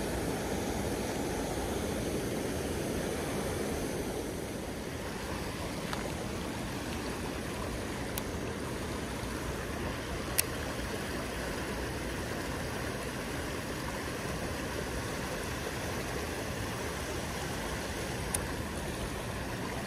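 Shallow rocky stream running, a steady rush of water, slightly louder for the first few seconds. Two short sharp clicks stand out, one about halfway through and one near the end.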